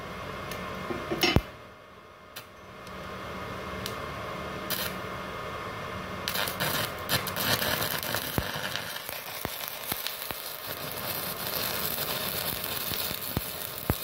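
Stick welding with a 3.2 mm electrode on a small 450-watt inverter welder. After a few sharp taps in the first seconds, the arc burns with a steady crackling hiss that grows louder from about six seconds in. The welder calls 3.2 mm a bit heavy for this machine, its practical maximum.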